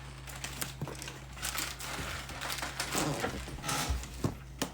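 Packaging being handled: crinkling and rustling, with scattered short clicks and knocks.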